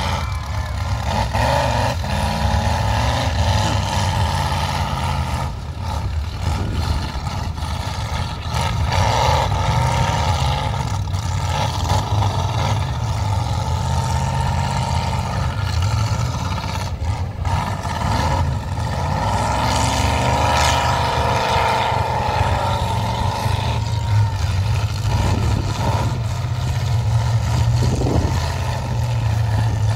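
Demolition-derby pickup trucks' engines running hard, revving up and down repeatedly as the trucks push against each other with wheels spinning.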